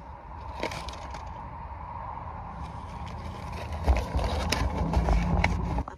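Handling noise inside a car: the phone's microphone rubbing and bumping against a padded jacket, over a low rumble that gets louder about four seconds in, with scattered clicks. It cuts off abruptly just before the end.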